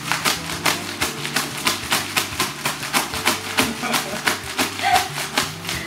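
Small hand air pump being squeezed rapidly to inflate a sleeping mat, a quick even run of short air puffs at about five strokes a second.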